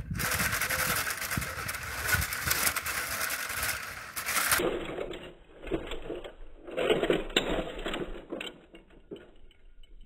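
Electric drive motors and plastic tracks of a Lego remote-control tank whirring steadily as it strains to climb a concrete step. After about four and a half seconds this gives way to irregular plastic clattering and knocks as the tank tips over onto its side and back.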